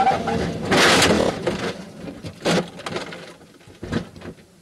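Onboard sound of an LMP2 prototype racing car crashing: a loud impact about a second in, then a few scattered knocks and clatters that die away as the car comes to rest.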